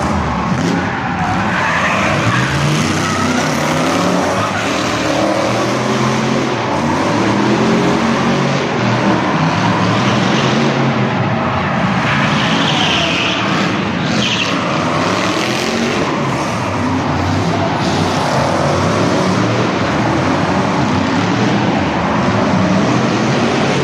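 Two drift cars in tandem, their engines revving hard and dropping again and again as they slide through the corners, with tyres screeching through the slides.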